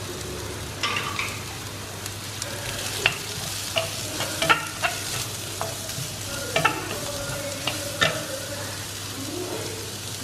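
Diced carrot and onion frying in oil in a kadai, sizzling steadily, while a wooden spatula stirs them, with sharp clicks and scrapes of the spatula against the pan.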